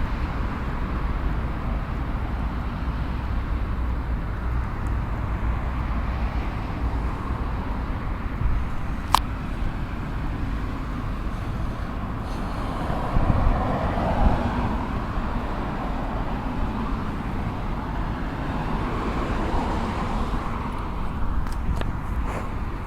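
Steady outdoor rumble of distant road traffic, swelling briefly about thirteen seconds in, with a single sharp click about nine seconds in.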